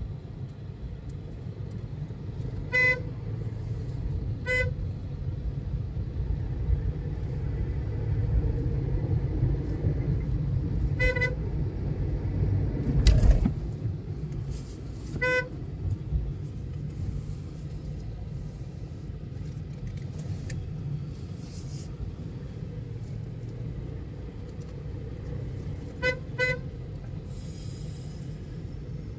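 Car driving, its road and engine rumble heard from inside the cabin, with short car-horn toots: single toots about 3, 4.5, 11 and 15 seconds in and a quick double toot near the end. A thump sounds about halfway through.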